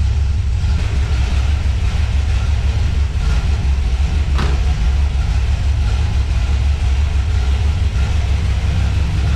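1971 Dodge Demon's 318 cubic-inch V8 idling steadily as it warms up after a fresh start. A single brief click is heard about four and a half seconds in.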